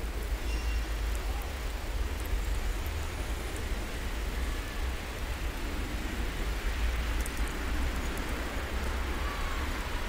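Wind buffeting the camera's microphone in a snowstorm: a steady low rumble under an even hiss, with a few faint ticks now and then.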